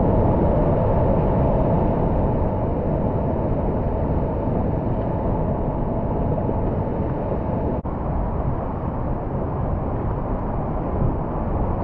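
Steady rushing of whitewater in a river rapid, heard close from a kayak on the water, with a brief dropout about eight seconds in.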